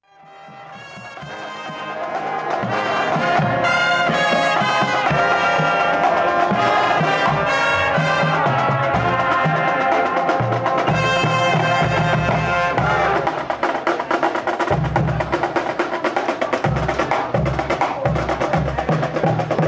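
Marching band brass section playing sustained chords over marching drums, the sound fading in at the start. About two-thirds of the way through, the brass thins and the drums take over with a run of repeated bass drum hits.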